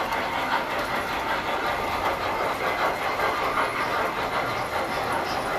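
Tinplate model trains running on metal track: a steady clatter of wheels and motors.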